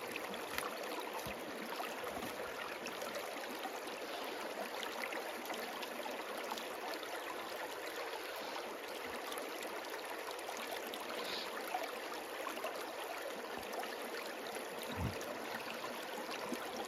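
Shallow stream running steadily over rocks: an even rush and trickle of water.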